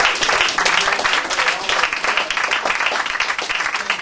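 Audience applauding, dense clapping that eases off slightly toward the end.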